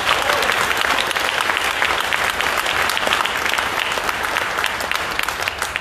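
Audience applauding: dense clapping that dies down near the end.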